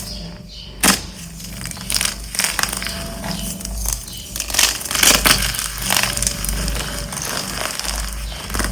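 Dyed gym chalk blocks being crushed, crumbling with irregular sharp crunches and crackles.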